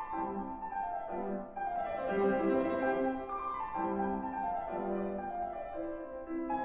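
Yamaha concert grand piano played solo: a classical piece with quick descending runs in the upper notes over a steady line of middle-range notes.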